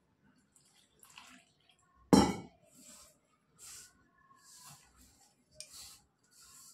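Hands kneading wheat-flour dough with water in a metal pot: short wet squishing strokes about once a second, with one loud sudden knock about two seconds in.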